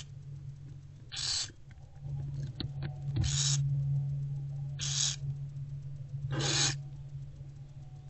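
Barn owlets giving rasping, hissing begging calls while being fed: four short hisses about a second and a half apart, over a steady low hum.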